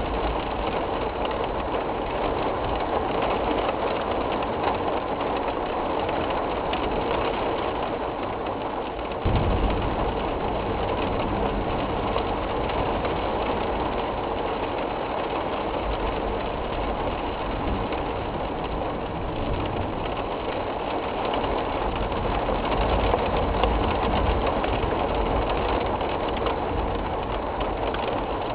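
Severe storm winds with heavy rain making a steady, loud rush, with deep wind rumble on the microphone; it jumps suddenly louder about nine seconds in.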